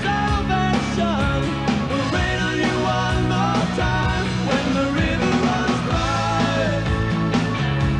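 Rock music with singing, with a steady beat.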